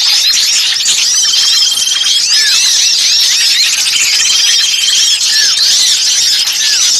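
A dense chorus of many small songbirds chattering and chirping at once, a bird-lure recording of noisy small birds. A short, even trill recurs about every three seconds among the overlapping calls.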